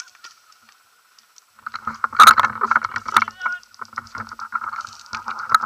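Handling noise on a gun-mounted action camera as the player moves through dry grass: irregular scrapes and knocks against the camera housing, starting about a second and a half in, with the loudest knock a little after two seconds.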